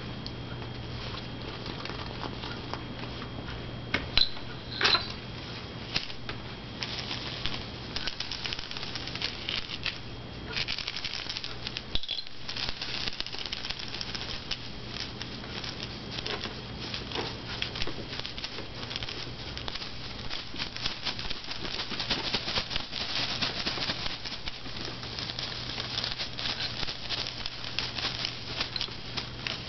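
Kittens wrestling on a corrugated cardboard scratcher and a crinkly plastic sheet: a continuous crackling patter of claws scratching cardboard and plastic rustling, denser and louder from about halfway through, with a few sharper clicks early on. A steady low hum runs underneath.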